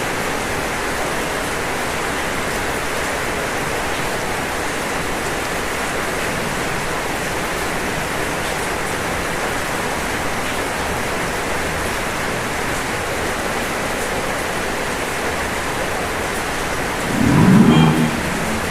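Steady rain falling on a roof, an even hiss. Near the end a brief louder low rumble swells and fades.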